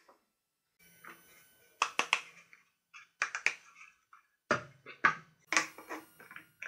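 A series of sharp clicks and knocks, some in quick pairs, from a hard plastic lithium power-tool battery pack and wire connectors being handled and set down on a workbench.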